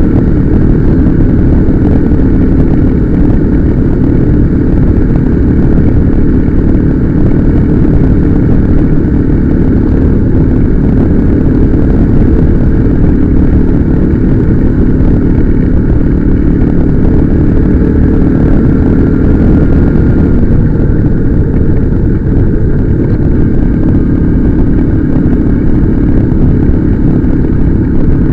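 Motorcycle engine running at a steady cruise while riding, under heavy low wind rumble on the microphone.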